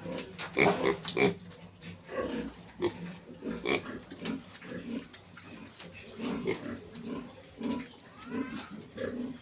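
Pigs grunting and squealing in a rapid, irregular series of short calls, loudest in the first second or so.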